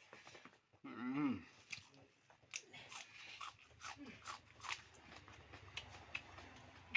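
A person chewing and biting food close to the microphone: many wet mouth clicks and small crunches. About a second in, a short wavering hum from the eater's voice is the loudest sound.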